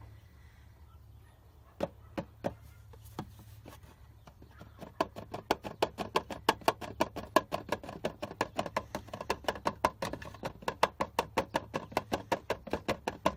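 Oil glugging out of a plastic bottle tipped into the engine's oil filler: a few scattered clicks, then from about five seconds in a fast, even run of glugs, roughly five a second.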